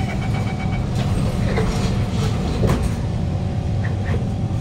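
Steady low hum inside a Kawasaki Heavy Industries C151 metro car at standstill. A rapid high beeping fades out about a second in, and a few short knocks come later.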